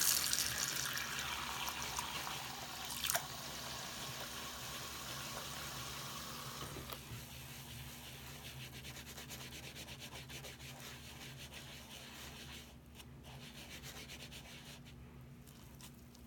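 Tap water running into a sink while wet, soapy sponges are rubbed and squeezed by hand, with a sharp click about three seconds in. The water stops about seven seconds in, leaving the softer rubbing and squishing of the sponges.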